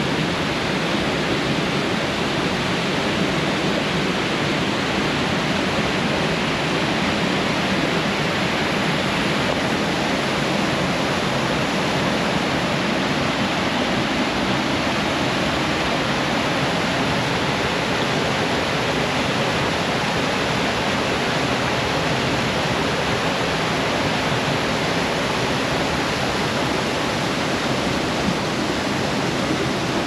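Waterfalls cascading over sandstone ledges into pools: a steady, even rush of falling water.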